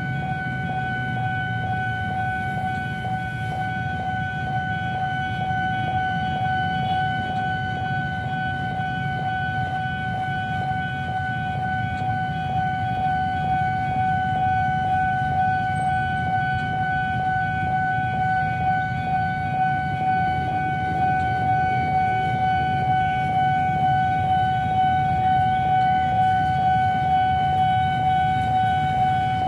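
Railway level-crossing warning alarm sounding one steady, unbroken tone as a train approaches. Beneath it a low rumble grows louder in the second half and takes on a regular pulsing beat near the end.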